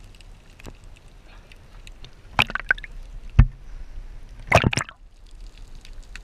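Water sloshing and splashing around a handheld camera as it moves between underwater and the surface: a muffled low hiss broken by a splash a little before halfway, a low thump a second later, and a bigger splash about two-thirds through.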